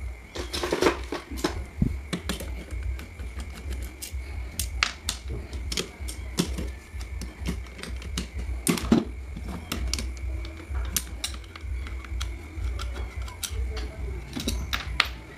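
Irregular metallic clicks, taps and knocks of a screwdriver and pliers working against the steel housing of an electric fan motor as it is pried apart, loudest about a second in and again around nine seconds. A steady low hum runs underneath.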